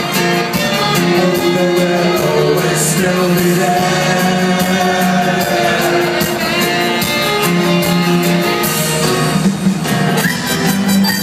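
Live ska-pop band playing through a concert hall PA, recorded from within the audience: held instrumental and vocal lines over a steady beat.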